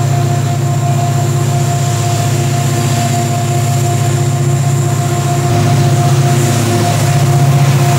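CC 205 diesel-electric locomotives working hard at the head of a long loaded coal train, their engines giving a steady heavy drone with a thin whine above it. The sound grows louder about five and a half seconds in as the lead locomotive comes close.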